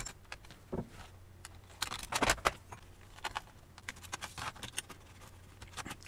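Scattered small clicks and light metallic rattles as a laptop's copper heat-pipe heatsink is worked loose and lifted off the motherboard. A quick cluster of louder clicks comes about two seconds in.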